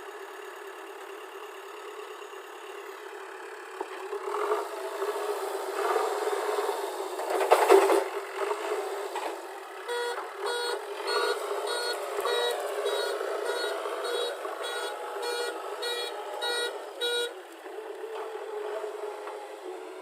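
JCB 3DX backhoe loader's diesel engine running under load, with a loud rush of noise about 8 seconds in. From about 10 seconds to near the end, its reversing alarm beeps about two to three times a second.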